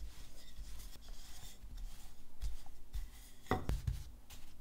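Wooden rolling pin rolling out bread dough on a silicone baking mat: a soft, low rubbing rumble, with a couple of light knocks about three and a half seconds in, then hands smoothing the dough flat.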